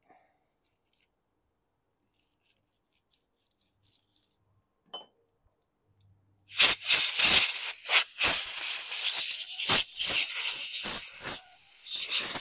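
Quiet for about six seconds, then short, loud blasts of compressed air hissing through the lawn mower carburetor's passages, one after another with brief gaps, clearing out water and debris.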